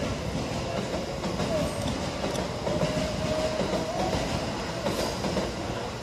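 Tokyo Metro 13000 series electric train running past over a level crossing, a steady rail noise.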